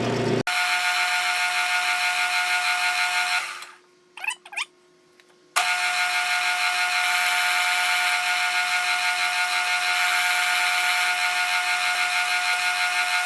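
Metal lathe running while turning brass bar stock down in diameter: a steady mechanical whine with several fixed tones over a hiss. It stops for about two seconds about a third of the way in, then starts again unchanged.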